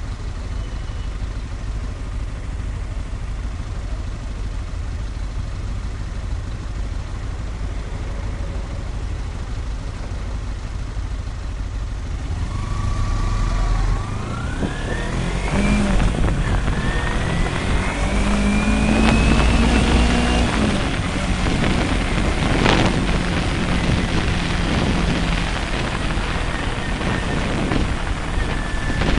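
Sport motorcycle engine idling at a stop, then pulling away and accelerating, its pitch rising twice as it shifts up through the gears, and running on at steady speed.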